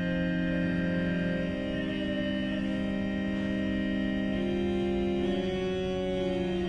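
Cavaillé-Coll pipe organ sustaining a chord of held notes, some of which change about a second and a half in and again near the end, over a steady low note.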